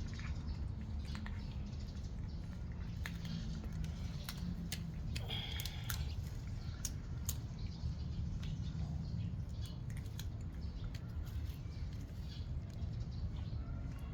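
Cats eating: irregular small, wet clicks of chewing and lapping over a steady low background rumble, with a brief higher-pitched sound about five seconds in.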